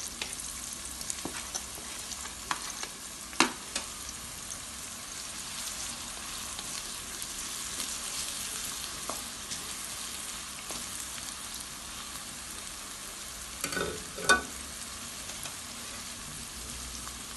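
Chopped onion, scallion and sweet pepper sizzling steadily in hot cooking oil as they are stirred, with a couple of sharp knocks of the stirring utensil against the pot, one about three seconds in and one near fourteen seconds.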